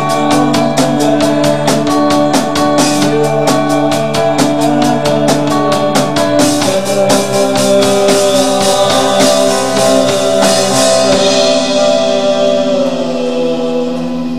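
Rock band playing live: drum kit with quick, even cymbal strokes over bass, electric guitar and keyboards holding chords. About eleven seconds in the drumming stops and a held chord rings out, the close of the song.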